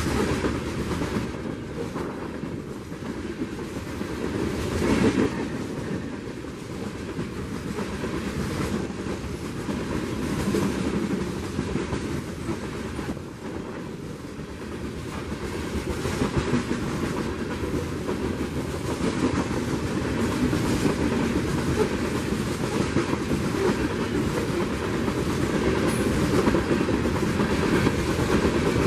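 Freight train of open-top coal cars rolling past at close range: a continuous rumble of steel wheels on rail with a repeated clickety-clack of wheelsets over the track. It swells about five seconds in and grows louder again toward the end.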